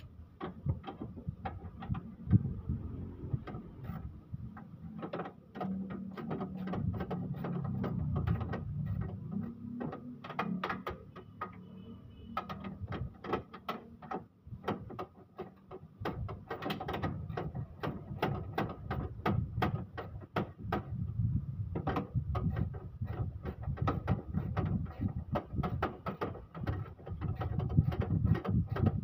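Ratchet wrench clicking in quick, irregular runs as bolts are worked, over a low background rumble.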